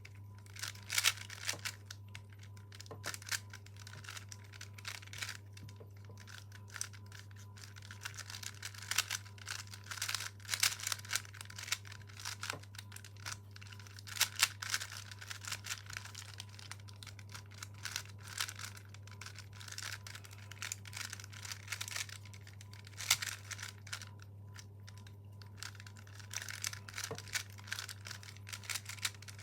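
Plastic 3x3 speed cube being solved by hand: rapid, irregular clicking and clacking of layers turning, with brief pauses.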